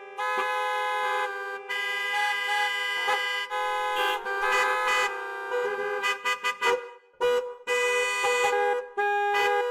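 Vehicle horns honking in traffic: long held blasts, several horns overlapping, with a quick run of short toots about two-thirds of the way through.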